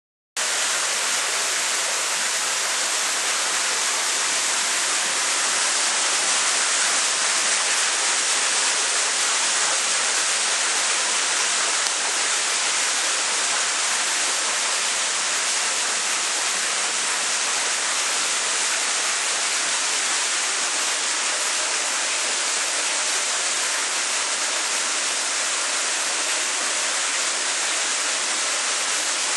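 Steady rushing noise like running or splashing water, mostly a high hiss with little low rumble, cutting in abruptly just after the start and holding level.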